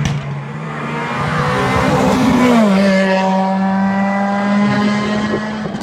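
Rally car passing at speed on a tarmac stage. Its engine note drops in pitch as it goes by about two and a half seconds in, then holds a steady high note as it pulls away.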